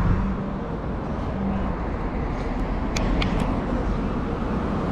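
Road traffic on a wide city street, a steady rumble with a car driving past. Three short sharp ticks come about three seconds in.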